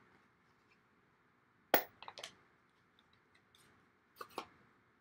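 A few sharp plastic clicks and taps from stamping supplies being handled, a clear acrylic stamp block and an ink pad. There is one loud click a little under two seconds in, a few lighter ones just after, and two more about four seconds in.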